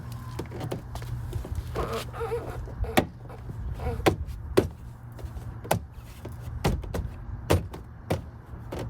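Sharp clicks and knocks, about seven spread over several seconds, from parts of a car door being handled and fitted back together.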